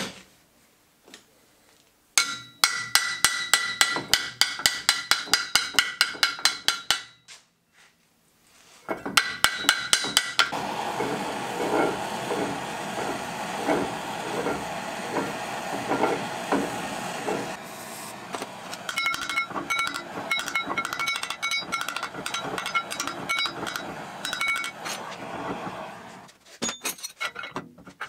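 Rapid metal taps on a CVT driven clutch that has not popped open as it should. Each tap rings the clutch, and the taps come in two quick runs. Then a handheld butane torch hisses steadily as it heats the clutch hub, with more ringing taps over the hiss.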